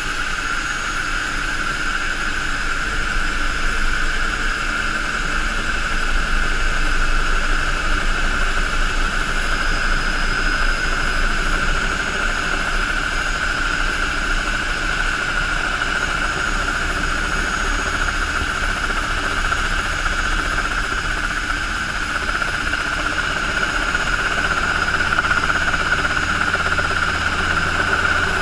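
Helicycle kit helicopter's Solar T62 gas turbine running steadily on the ground with a high, even whine over the low beat of the turning rotor, heard from inside the open cockpit.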